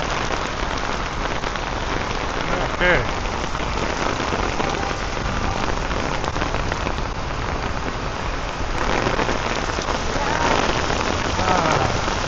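Heavy monsoon rain pouring down, a dense steady hiss of rain hitting the ground, with a brief falling tone about three seconds in.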